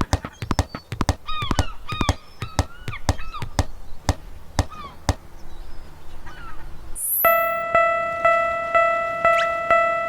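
Cartoon sound effects: short honking calls over a run of quick clicks. About seven seconds in, a whoosh, then a railroad crossing bell starts ringing steadily at about two strikes a second, with a rising boing near the end.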